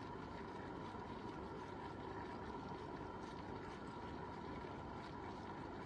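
Gourmia electric egg cooker heating its water to steam the eggs: a faint, steady hiss of boiling water and steam with a fine crackle.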